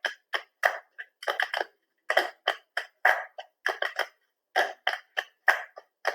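Body percussion: a rhythm of short, sharp hand claps, some single and some in quick runs, repeating in an uneven pattern.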